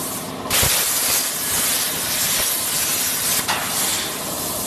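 CNC plasma torch arc hissing as it cuts through steel plate. The louder cutting hiss starts sharply about half a second in and drops away about three and a half seconds in, with a quieter steady hiss running underneath.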